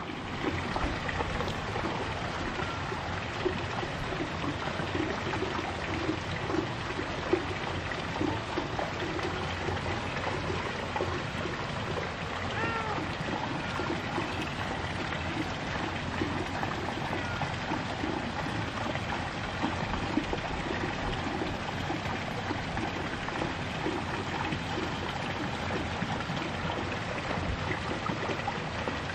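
Steady outdoor rushing noise, with one faint short call about twelve seconds in.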